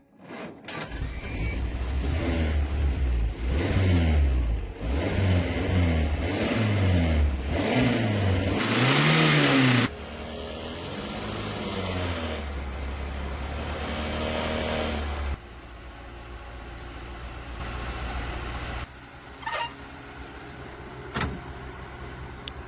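Restored Isuzu Fargo's engine running and being revved repeatedly, its pitch rising and falling in swells, then settling into steadier running. It runs after sitting for 40 years.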